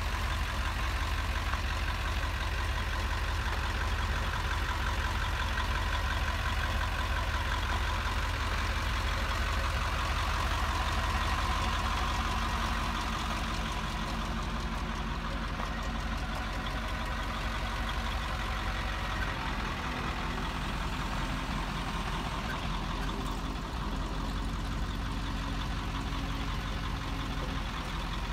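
1983 Big A 2500 floater sprayer's engine idling steadily.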